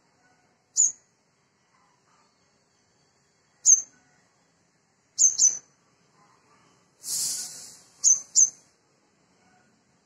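Sunbird giving sharp, high chip calls, six in all: singly, then in two quick pairs. About seven seconds in there is a brief harsher hissing burst.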